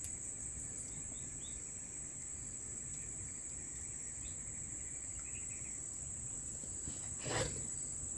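Forest insects droning steadily at a high pitch, with a few faint short chirps around the middle and a soft knock near the end.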